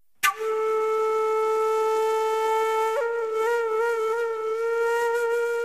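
Instrumental background music: one long held note that starts abruptly, stays steady for about three seconds, then wavers gently in pitch.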